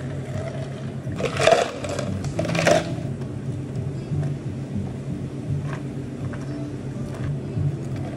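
Ice cubes dropped into clear plastic cups in two clattering rushes, about one and a half and two and a half seconds in. Cider soda is then poured from a can over the ice, over a steady low hum.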